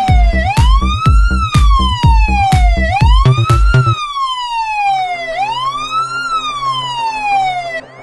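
Police siren wailing, rising quickly and falling slowly about every two and a half seconds, over a heavy drum beat. About halfway through the beat stops and the wail carries on over a low steady hum.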